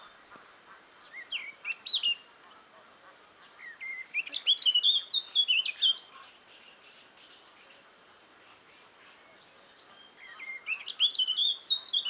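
Nightingale singing: three phrases of rapid, varied whistled notes and trills, separated by pauses, the longest phrase in the middle.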